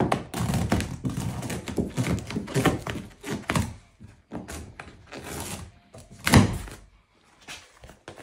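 Old black foam deck matting being peeled and pried off a kayak's plastic deck, the glued pad tearing loose in a quick run of rough scraping strokes. About six seconds in there is a single loud thunk.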